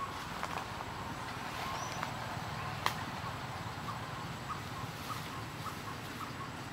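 Forest ambience: a steady background hiss with a regular series of short high chirps, about three a second, through the second half, and a single sharp click near the middle.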